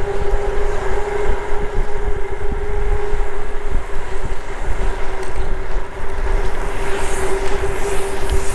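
Wind buffeting the microphone of a camera on a moving bicycle, a steady rumble with a constant hum running underneath.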